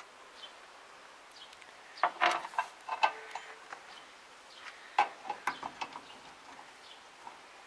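Metal clicks and clinks of a T-handle socket wrench and other hand tools against a round baler's steel side panel as the roller bearing housing bolts are tightened. The sound comes in two short bursts, about two seconds in and again about five seconds in.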